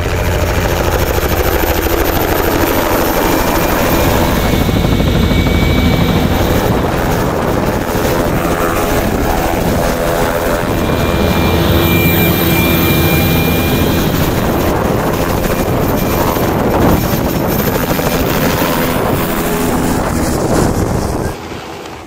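A large vehicle arriving with its engine running loudly and steadily, the sound dropping away sharply about a second before the end.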